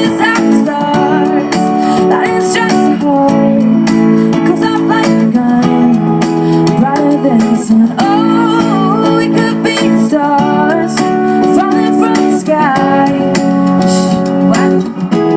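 Live pop song with an acoustic guitar strumming steady chords and a woman's voice singing over it.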